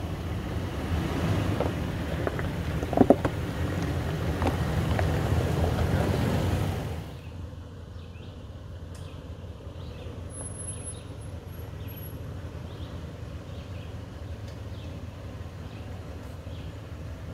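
Toyota 4Runner's V6 engine running at low speed as the truck crawls over rock and gravel, with a sharp knock about three seconds in. About seven seconds in the sound drops abruptly to a quieter steady engine rumble with faint ticks.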